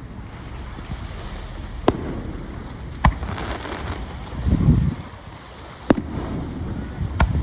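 Aerial fireworks shells bursting: four sharp bangs spaced one to three seconds apart, with a deeper rumbling boom about halfway through.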